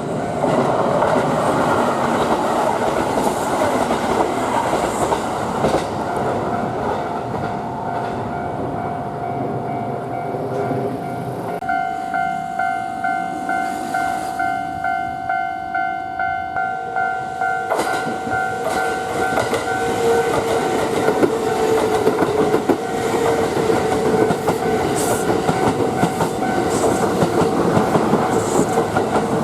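Japanese level-crossing warning bell ringing steadily as a Kintetsu Osaka Line train passes, its wheels clattering over the rail joints. The bell's tone shifts about twelve seconds in, and a second, lower tone joins it about eighteen seconds in.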